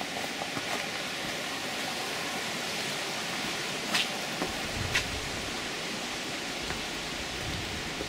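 A steady rain-like hiss, with two sharp ticks about a second apart midway and a low rumble coming in just after the first.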